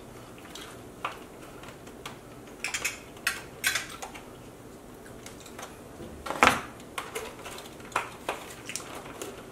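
Scattered clicks and taps of eating at a table: a spoon scraping a small cup of mashed potatoes and hands reaching into a plastic tub of caramel popcorn. The loudest knock comes about six and a half seconds in.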